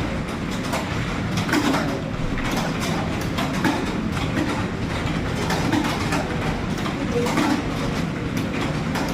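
Computer keyboard typing: a rapid, continuous clatter of keystrokes during a timed typing speed test.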